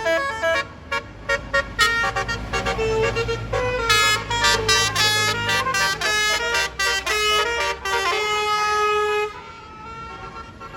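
A bus's Basuri telolet horn, a multi-tone musical air horn, playing a quick jingle of short notes stepping up and down in pitch, with a bus engine rumbling underneath through the middle. The horn stops suddenly about nine seconds in.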